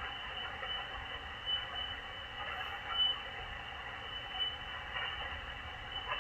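Shortwave single-sideband static from a Malachite DSP SDR receiver: an even hiss cut off above and below like a narrow radio passband, with a thin steady high whistle that now and then flares brighter. It is the open, empty channel of the net between transmissions.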